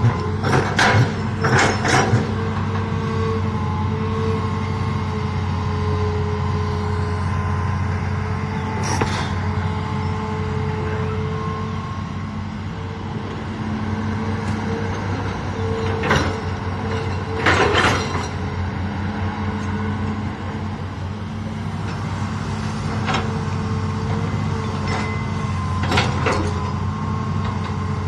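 Hitachi hydraulic crawler excavator running under load while it digs and lifts soil: a steady diesel engine hum with a higher whine that swells and fades. About eight sharp clanks of the bucket strike hard, stony ground, bunched near the start, around the middle and near the end.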